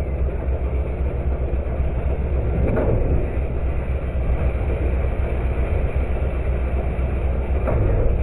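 Automated side-loader garbage truck's diesel engine and hydraulics running steadily while the arm lifts and tips a plastic wheeled cart into the hopper. A couple of light knocks come about three seconds in and near the end.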